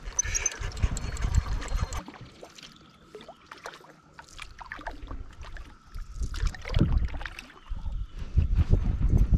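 Sounds of a canoe on a creek: water splashing and small knocks against the hull, with wind gusting on the microphone at times.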